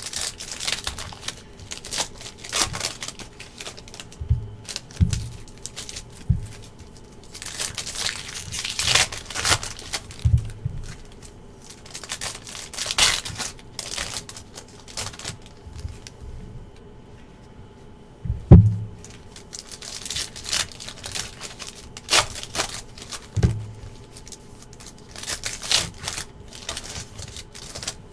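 Foil trading-card pack wrappers crinkling and tearing as packs are opened by hand, mixed with cards being handled and a few soft thuds. A single sharp knock about two-thirds of the way through is the loudest sound.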